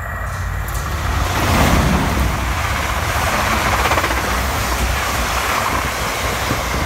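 Siemens Desiro electric multiple unit passing through at speed without stopping. A rush of wheel and rail noise builds to a peak about two seconds in and stays loud as the coaches go by.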